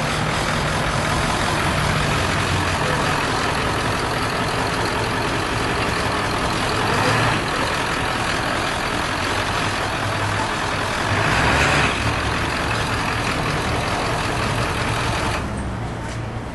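Motor-vehicle engine idling steadily, a low hum under a broad rushing noise, with two brief louder swells. The rushing drops away just before the end.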